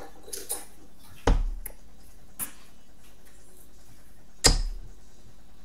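Steel-tip darts hitting a Winmau Blade 5 bristle dartboard: two sharp thuds about three seconds apart, a second in and near the end, each with a brief low boom from the board.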